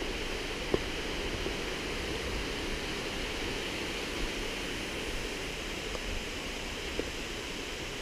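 Steady rush of falling and flowing water from a nearby waterfall and stream, an even hiss with no changes, broken by a few short sharp clicks.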